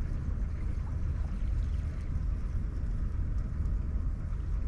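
Wind buffeting the microphone: a steady low rumble that keeps wavering in level.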